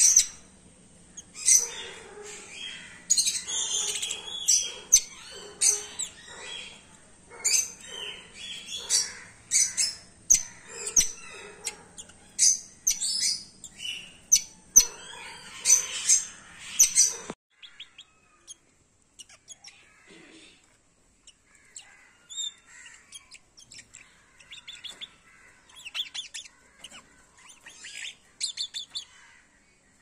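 Caged red-rumped parakeets chirping and calling in rapid, high-pitched bursts. The busy chirping cuts off abruptly a little past halfway, and sparser, fainter chirps follow.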